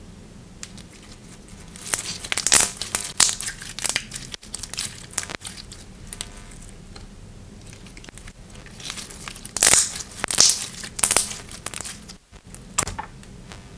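Slime being squeezed and stretched by hand, crackling and crinkling in two bouts, about two seconds in and again around ten seconds in.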